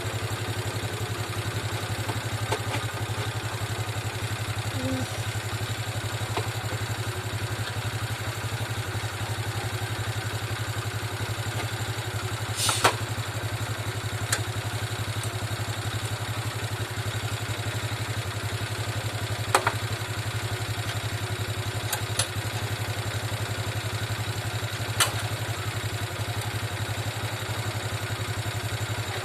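Motorcycle engine idling steadily, with a handful of short sharp clicks or knocks over it, the loudest a little before halfway.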